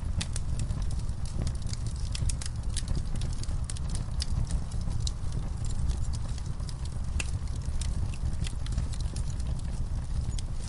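Logs burning in a fireplace, crackling with frequent sharp, irregular pops and snaps over a steady low rumble of the flames.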